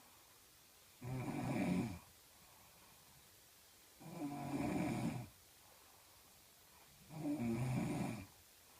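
A woman snoring heavily in deep sleep: three snores about three seconds apart, each a low buzzing rattle lasting about a second, with quiet breathing between.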